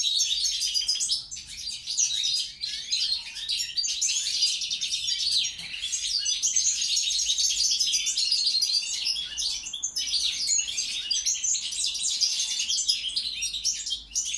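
European goldfinch of the Balkan subspecies singing: a fast, continuous twittering song, with short breaks about six and ten seconds in.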